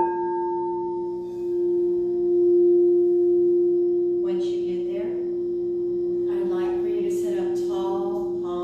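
Crystal singing bowl struck once with its mallet, then ringing on in one strong, steady tone. The tone swells about two seconds in and holds.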